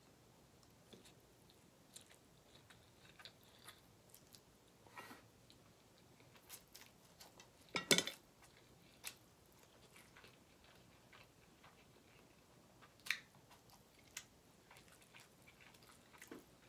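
Close-miked mouth sounds of eating ramen noodles: soft wet chewing and lip smacks, with a louder slurp about eight seconds in.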